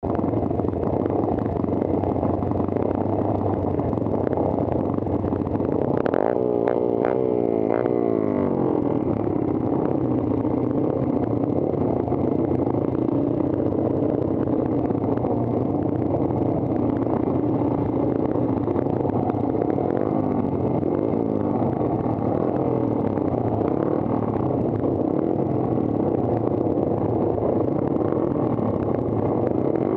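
Engine of a 1969-or-older dirt-track motorcycle running, heard up close from the rider's own bike. About six to eight seconds in it revs, its pitch sweeping up and down.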